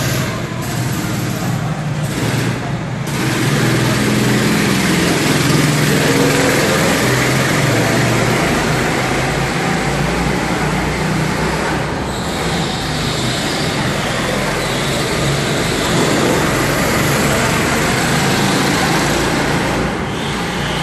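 Several go-kart engines running together, idling and blipping the throttle, a steady loud engine noise with one rising rev a few seconds in.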